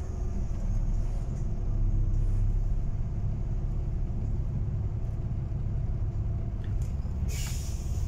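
Bus running along the road, heard from inside the saloon: a steady low engine and road rumble with a faint engine tone. A short hiss comes near the end.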